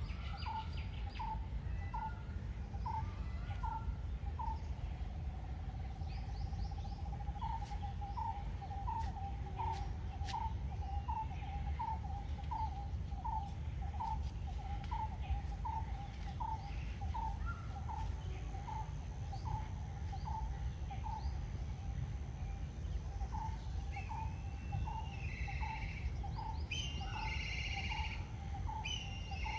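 A bird repeating one short note over and over, about two a second, with a steady low rumble of background noise beneath it. Other birds chirp at a higher pitch near the end.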